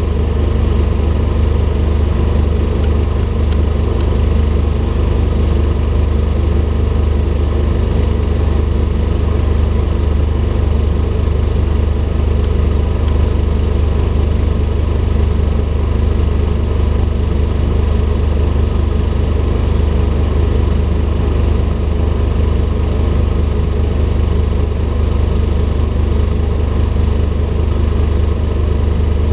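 Scania N230UD double-decker bus's five-cylinder diesel engine running with a steady low hum, heard from inside the passenger saloon.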